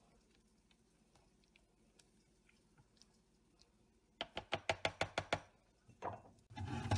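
Near silence for the first four seconds, then a quick run of about eight sharp clicks lasting about a second, and a single short knock near the end.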